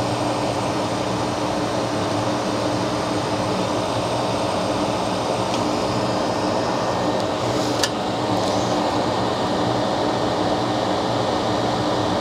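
Hot air rework station blowing a steady rush of air with a low hum from its fan, heating a surface-mount controller chip's solder joints to lift it off the board.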